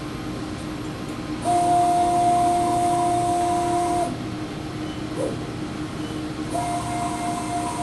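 Motor-driven XY stage of a RAM Optical Sprint CNC-300 video measuring machine traversing under program control between measurement points: a steady motor whine with a hiss, lasting about two and a half seconds, then starting again near the end. A low steady hum runs underneath.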